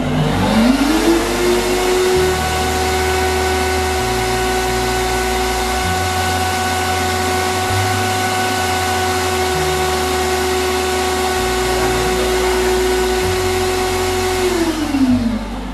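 Lamaca LA-88 commercial blender's motor spinning up with a rising whine, running at one steady pitch on its low setting, then winding down near the end as its countdown timer runs out.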